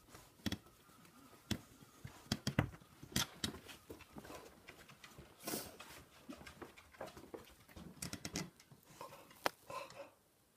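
A pet moving about: irregular small clicks and scuffles, with a short hiss about five seconds in.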